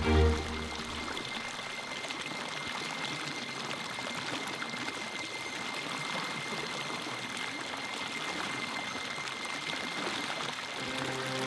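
Water rushing and splashing over rocks in a small stream cascade, a steady even rush. Music fades out about a second in and comes back near the end.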